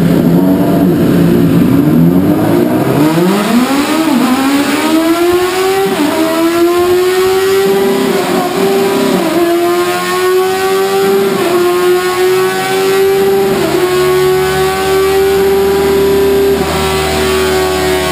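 Suzuki B-King's 1340 cc inline-four run at full throttle on a roller dynamometer. The engine note starts lower and unsteady, climbs steeply over about two seconds, then holds high and nearly level with a few brief dips as the bike nears its top speed on the rollers.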